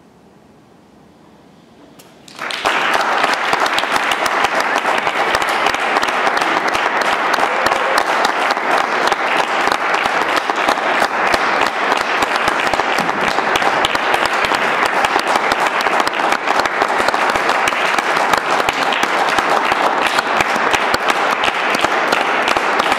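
Audience applauding: steady, dense clapping that breaks in suddenly about two and a half seconds in after a short hush and keeps going at an even level.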